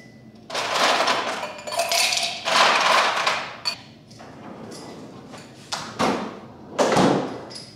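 Ice cubes clattering into a glass in several bursts over the first few seconds, then a thud with more rattling near the end.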